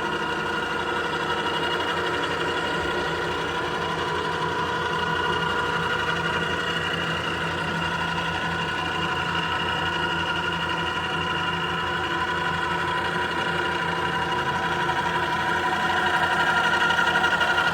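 Oliver 2085 tool grinder running: a steady mechanical hum with several held tones over a fast, even low pulsing, growing a little louder near the end.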